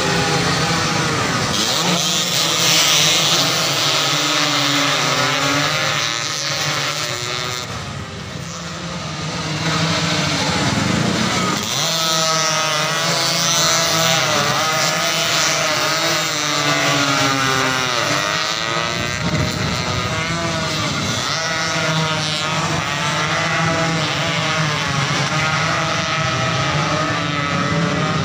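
A pack of 125cc two-stroke underbone racing motorcycles revving hard as they brake, corner and accelerate past, many engines overlapping with their pitch rising and falling. The bikes are densest and closest in the middle stretch, with a short lull before it.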